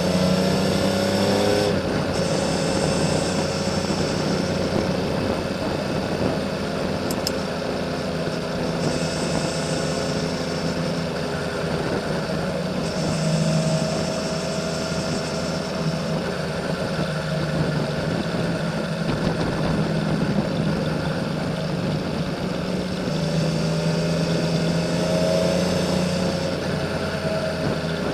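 Honda CBX 1000's air-cooled inline six-cylinder engine through a Kerker 6-into-2 exhaust, running under steady load at moderate revs. Its pitch falls and rises a few times with throttle and gear changes.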